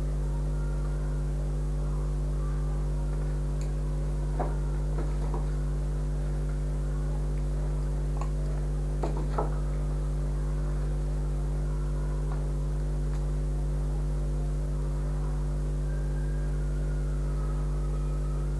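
Steady electrical hum, low and even, running throughout, with a few faint clicks and rustles of handling about four and nine seconds in.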